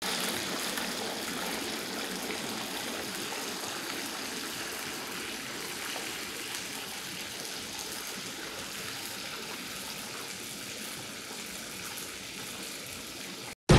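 Steady rushing hiss like running water, fading slightly over the seconds and cutting off abruptly just before the end.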